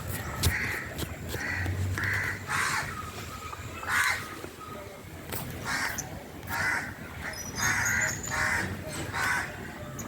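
Crows cawing: about ten short, harsh caws at irregular intervals.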